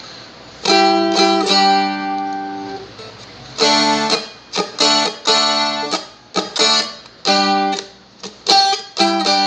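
Seagull Merlin (a four-string, dulcimer-like strumstick) tuned to open D, played as a run of strummed chords and picked notes on the second string. Some notes ring on and others are cut off short, in three groups with brief pauses between.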